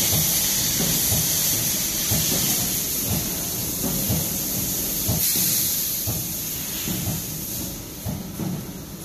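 Steady hiss of compressed air from a pneumatic hole-punching machine, over low rustling and knocks from thin PE film being handled on the die plate. The hiss weakens near the end.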